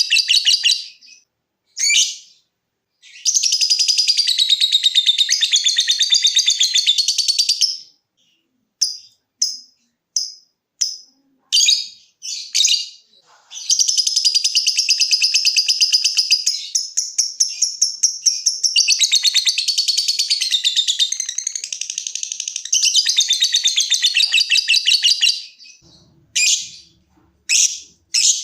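Lovebird 'ngekek' song: long bouts of very rapid, high-pitched chattering, one about five seconds long early on and one about eleven seconds long in the middle, with a string of short separate chirps between and after them.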